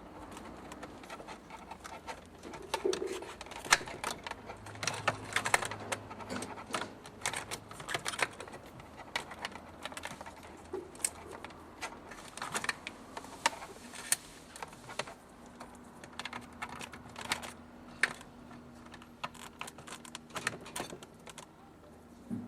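Irregular light clicks and knocks of small hard parts being handled, coming in uneven clusters. A faint steady hum comes in about two-thirds of the way through.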